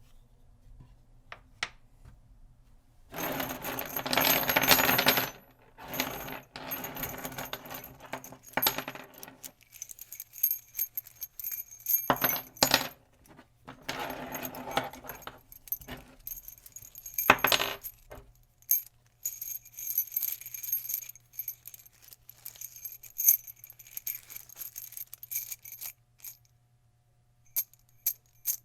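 Metal nails pouring out of a container in a dense clattering stream, in several pours of a second or more each, then scattered clinks and rattles as the last nails shift and drop.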